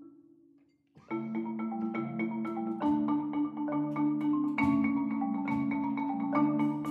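Marimba quartet playing. After a brief hush, the ensemble comes back in about a second in with fast, repeated mallet strokes over sustained low notes.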